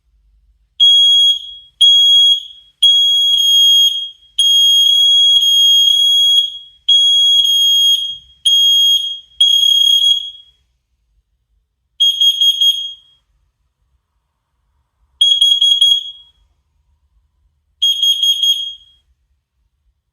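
Aroha Link combination smoke and carbon monoxide detector sounding its test alarm after its front button is pressed: a run of loud, high-pitched electronic beeps with short gaps, which about halfway through slows to single beeps roughly three seconds apart.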